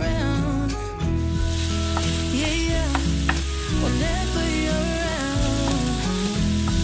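Ground sausage sizzling as it browns in a skillet, with a wooden spoon scraping and knocking against the pan a few times, over background music. The sizzle comes in about a second in.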